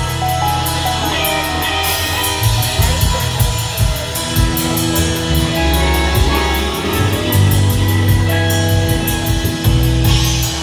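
Live rock band playing loudly: electric guitars over a steady drum beat with cymbals keeping time.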